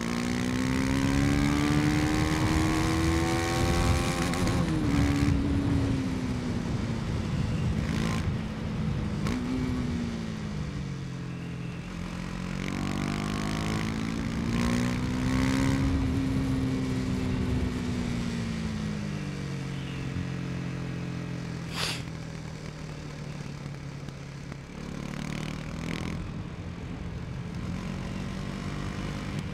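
KTM 250 Duke's single-cylinder engine under way, its revs climbing for about four seconds, dropping off sharply, then rising again and easing back to a steady cruise. A few brief sharp ticks sound over the engine.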